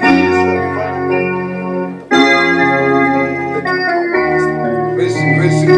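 Organ playing held chords, moving to a new chord about every two seconds, with a sharp new attack about two seconds in.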